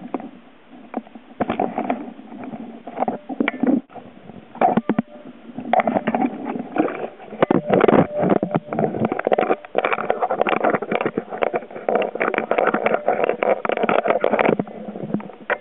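Water churning and bubbling around an underwater camera housing, heard as a dense irregular crackle with knocks. It comes in short bursts with brief pauses over the first few seconds, then runs almost without a break until shortly before the end.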